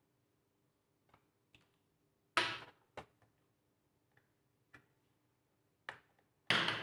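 Scattered clicks and taps of hand tools and plastic parts while a laptop's back panel is worked open, with two louder, slightly longer clicks and several small ticks between them.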